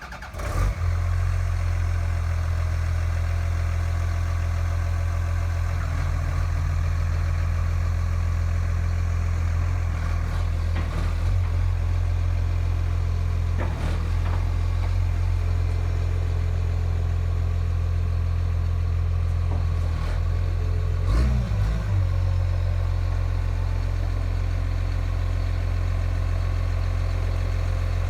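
Komatsu D51PX-22 bulldozer's diesel engine catching just after starting, then idling steadily. Its note wavers briefly about two-thirds of the way through.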